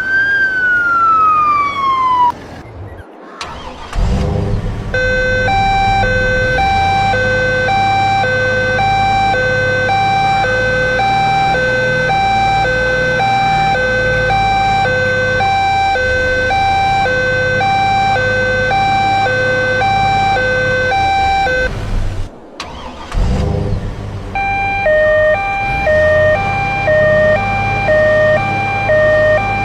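Truck telolet horn, a multi-trumpet musical horn. It first sounds a rising-and-falling siren wail, then, over a low engine rumble, a steady two-note alternating hoot, each note about half a second, repeated for some seventeen seconds. After a brief break near the end it plays a different repeating pattern of several notes.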